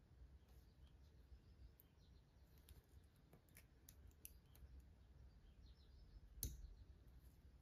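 Near silence with faint small clicks as fishing pliers grip a fish hook and the line is pulled tight to cinch the knot, and one sharper click near the end.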